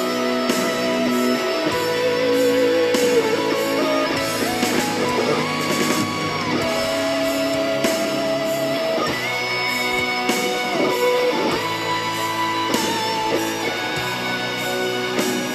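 Background music: a guitar-led instrumental track with long held notes that bend and slide in pitch over a steady lower accompaniment.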